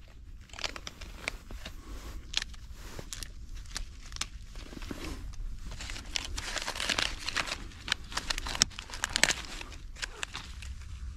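Papery bark being peeled and torn off a rotting birch branch by a gloved hand: dry crackling and tearing with scattered snaps, busiest in the second half, and one sharper crack about three-quarters of the way through.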